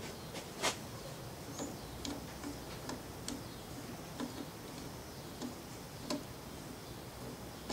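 Scattered light clicks and ticks from turning the angle-adjustment knob and handling the metal sharpening jig as the blade angle is set, the sharpest click about a second in.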